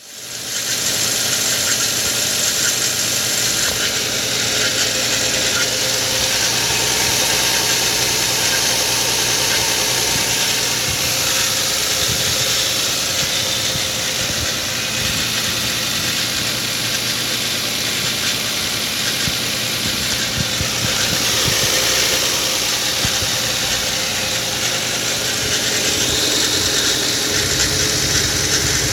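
2013 Nissan Xterra's 4.0 L V6 engine running steadily after a cold start, making a strange noise that the owner has not identified.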